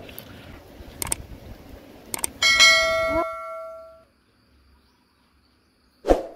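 Subscribe-button animation sound effect: two sharp clicks, then a notification-bell chime about two and a half seconds in that rings out and fades over about a second and a half. A short sharp sound follows near the end.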